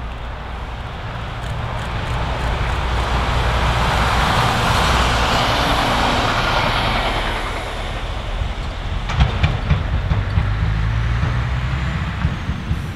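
Diesel railbus passing: a rushing rumble that swells and then fades away. In the second half a heavy diesel dump truck rumbles over the level crossing, its wheels knocking sharply on the rails.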